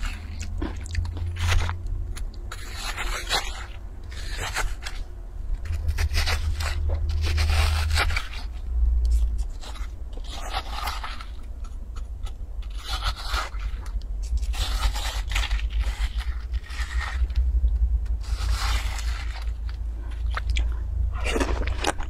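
Metal spoon scraping and scooping juicy watermelon flesh out of a halved melon, with wet crunching of the flesh, in repeated strokes every second or two.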